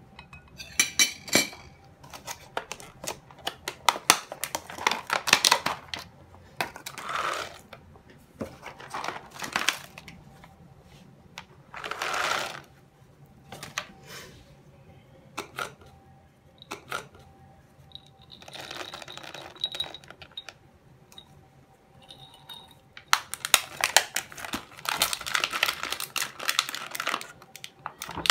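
Almonds, nuts and dried fruit such as goji berries tipped into a ceramic bowl of batter, heard as a series of clicks, rattles and short pouring bursts, with a longer pour near the end.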